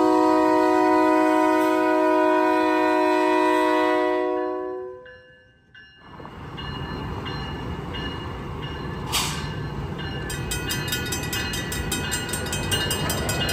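Locomotive air horn sounding a steady chord of several notes, cutting off about four seconds in. Then the rumble of the diesel locomotive rolling over the grade crossing, with a crossing bell ringing in quick, even strokes from about ten seconds in.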